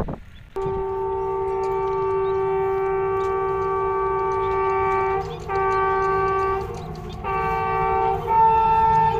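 ZCU-20 diesel locomotive air horn sounding a steady multi-note chord. A long blast of about four and a half seconds starts just over half a second in, followed by two shorter blasts. The chord shifts to a different, louder set of notes near the end.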